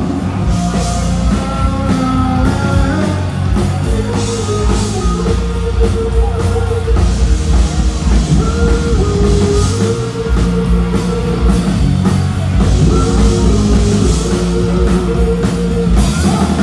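A live rock band playing over loudspeakers, with a steady drum-kit beat under guitar lines.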